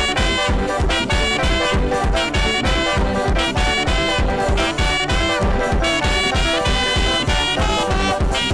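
Upbeat African high-praise music: a saxophone playing with a band over a steady fast drum beat.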